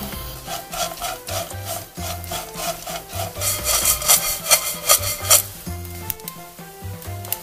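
Dried anchovies scraping and rasping against a nonstick frying pan as they are stirred with a wooden spatula and tossed, a run of quick dry strokes that is loudest around the middle. Background music plays underneath.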